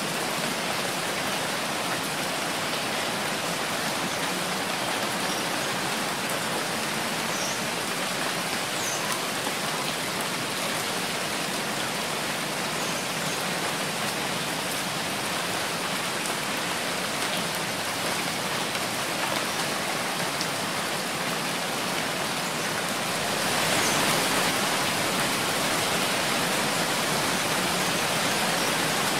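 Steady heavy rainfall, an even dense hiss of rain, growing a little louder and brighter about three-quarters of the way through.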